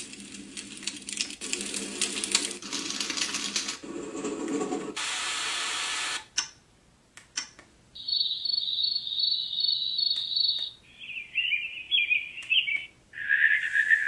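A Magicteam white noise machine's speaker stepping through its built-in sounds, each cut off after a second or two. For the first six seconds it plays rushing noise in several textures. After a short near-silent gap with a few faint clicks, a steady high pulsing chirp plays, then bird-like chirping.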